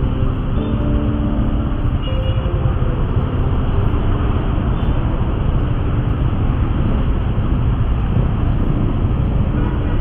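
Motor scooter engines idling in stopped traffic: a steady low rumble.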